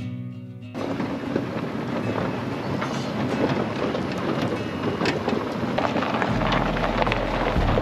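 Golf cart driving over rough ground, its body rattling and clattering over a steady rushing noise. A low steady hum comes in near the end.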